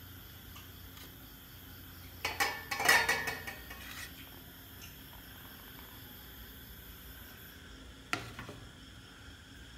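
Steel kitchenware clattering: a quick run of metallic knocks with ringing a little over two seconds in, then a single knock near the end.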